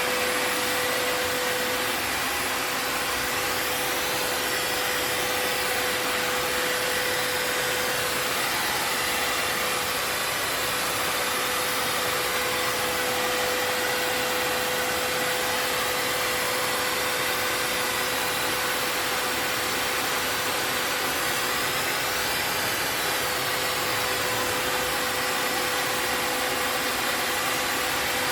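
Vacuum cleaner running steadily: rushing air with a constant motor whine.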